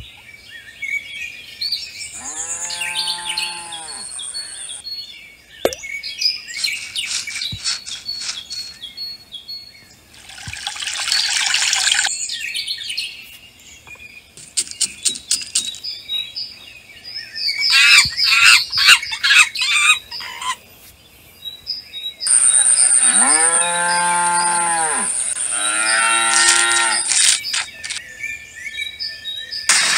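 Farmyard ambience: a cow moos with a long drawn call a few seconds in, then twice more near the end. Birds chirp in short high bursts in between.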